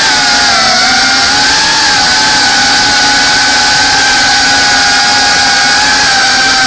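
Brushless motors and propellers of a GEPRC Cinelog 35 cinewhoop FPV drone in flight: a steady high-pitched whine whose pitch wavers slightly with throttle.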